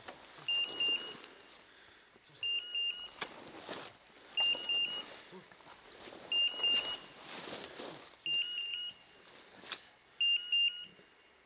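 Hunting dog's beeper collar sounding a quick cluster of high electronic beeps about every two seconds, the repeating pattern typical of point mode: the English setter is standing on point. Rustling of steps through tall grass between the beeps.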